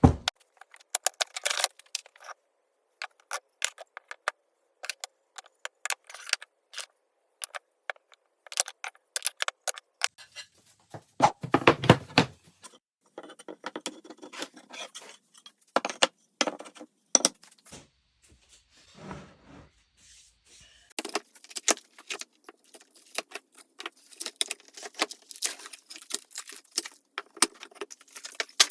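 Pieces of hard exotic wood knocking and clattering together as they are handled, in irregular sharp clacks, with a heavier cluster of knocks about twelve seconds in.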